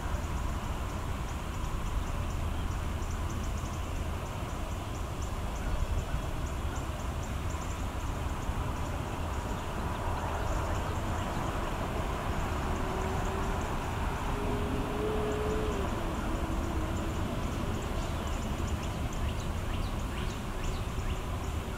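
Steady outdoor background at the water's edge: a low rumble with an even hiss and faint, rapid high-pitched ticking throughout, and a faint drawn-out call or tone that wavers and drops off in the middle.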